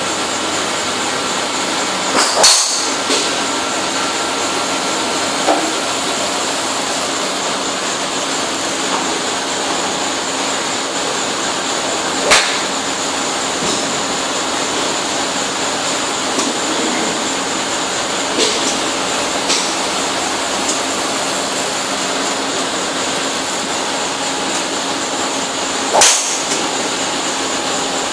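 TaylorMade Burner 9.5° driver striking golf balls off a tee: sharp, short cracks about two seconds in, around the middle and near the end, over a steady background hum.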